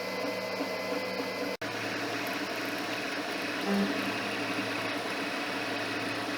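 Monoprice Maker Select V2 3D printer running a print: stepper motors whirring in shifting tones over a steady fan hum. The sound drops out briefly about a second and a half in.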